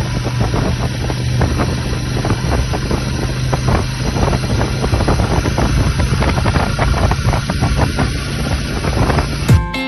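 Royal Enfield Meteor 350's single-cylinder engine running steadily at road speed, mixed with wind rushing over the microphone. Guitar music cuts in just before the end.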